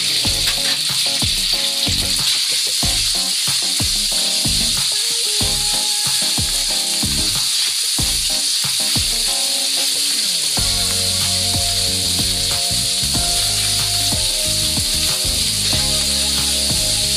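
Marinated beef slices sizzling steadily in hot oil in a wok as they are stir-fried with a spatula, over background music.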